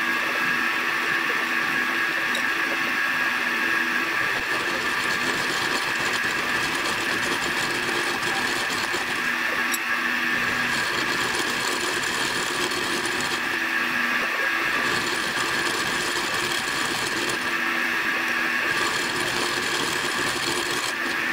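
Milling machine running with its end mill cutting spline grooves into the end of a steel Ford driveshaft: a steady high whine, with a lower cutting tone that comes and goes every few seconds as the cut changes.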